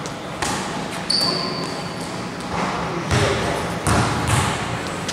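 Basketball thudding on an indoor gym court, a handful of separate bounces and impacts, with a short high squeak about a second in.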